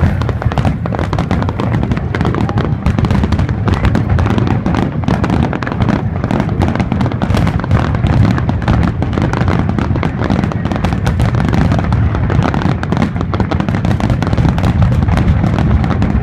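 Aerial fireworks bursting in a dense barrage, with many bangs a second blending into a continuous rumble.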